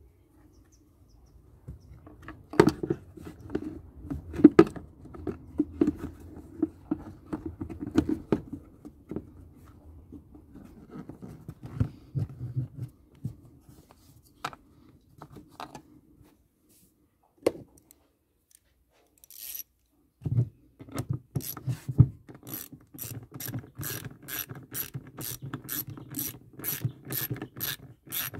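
Plastic air filter housing of a Renault Trafic 2.0 dCi engine bay being handled and pressed into place, with irregular knocks and rattles. From about two-thirds of the way in, a ratchet wrench clicks back and forth at about two or three clicks a second, tightening the housing's fasteners.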